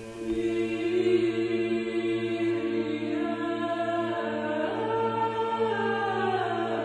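Closing music: a slow chant, voices held long over a steady low drone note, one line sliding slowly downward in the second half.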